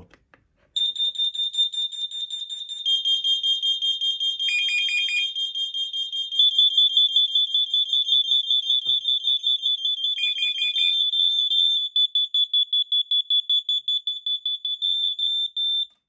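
Interlinked Smart Detect UK wireless smoke alarms sounding together after the remote's test button is pressed: rapid high-pitched beeping in two slightly different pitches, with a lower beep joining briefly twice. The beeping thins out about twelve seconds in and stops just before the end. All sounding at once is the sign that the devices are paired and linked.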